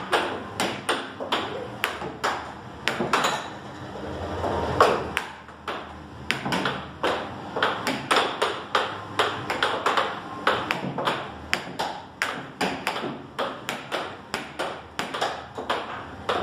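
Air hockey puck clacking against the mallets and the table's rails in a fast rally: a quick, irregular run of sharp clicks, several a second, with one harder hit about five seconds in.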